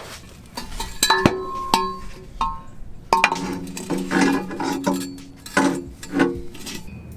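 Repeated metal clinks and clanks, some ringing briefly, from exhaust parts and hand tools being handled while the catback exhaust is fitted.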